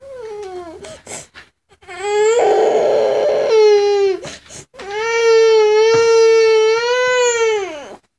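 A toddler crying in a meltdown: a short falling sob, then a wail, then a long wail held at one pitch for about three seconds that drops away near the end.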